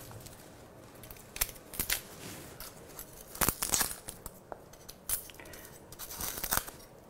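Kitchen knife cutting roughly through a red onion, skin and all, giving a handful of short, irregular crackling cuts and crinkles of the dry papery skin.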